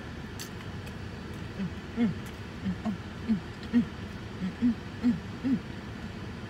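A woman humming with her mouth closed: a run of about ten short, low notes, each dipping in pitch, roughly two or three a second, starting about a second and a half in and stopping a second before the end.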